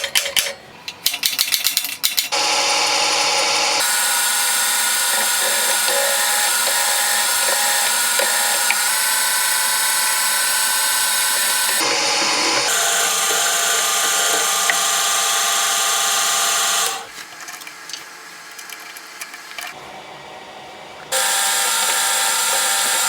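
Power drill boring shallow holes into an old steel file: a few clicks and knocks, then the drill running steadily for about fifteen seconds with a brief pause about halfway. It starts again for a couple of seconds near the end.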